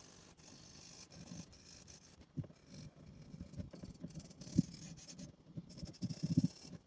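Pencil scratching across drawing paper in repeated crosshatch shading strokes, the hiss starting and stopping with each run of strokes. A few soft thumps come in between, the loudest a little past halfway and near the end.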